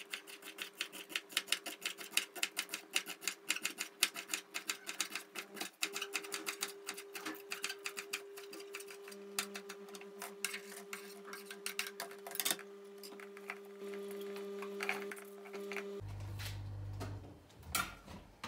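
Kitchen knife chopping leeks on a cutting board: quick, even strokes about five a second, thinning to scattered strokes after about twelve seconds.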